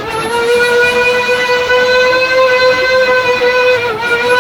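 Trim router running with a steady high whine, its pitch sagging briefly near the end.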